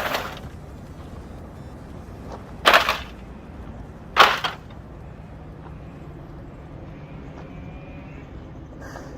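A hammer striking a microwave oven three times, loud sharp blows with a short ringing tail: one at the start, then two more about a second and a half apart.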